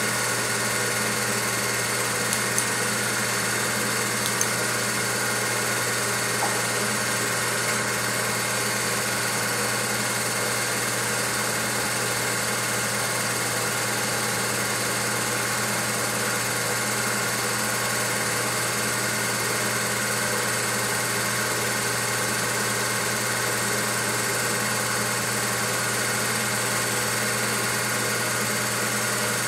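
Home-movie film projector running, a steady motor hum and whirr that holds unchanged throughout.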